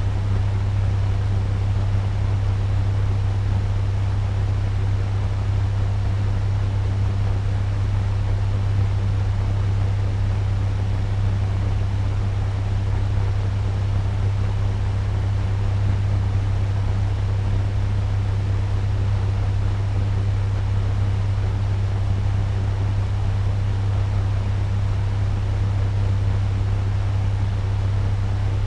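Turbo fan running steadily at medium speed: a constant low hum under an even whooshing rush of air.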